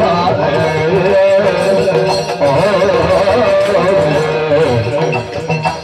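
Yakshagana music: a sung verse with a wavering vocal line over chende and maddale drum strokes and a steady drone.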